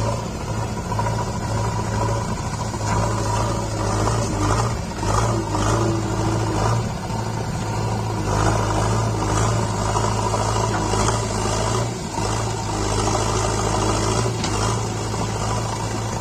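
JCB 3DX backhoe loader's diesel engine running steadily with a deep hum, its speed rising and falling slightly as the machine works.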